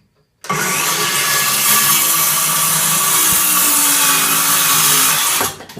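Power saw cutting a wooden board to length: the saw starts about half a second in, runs steadily and loudly through the cut, and stops abruptly near the end.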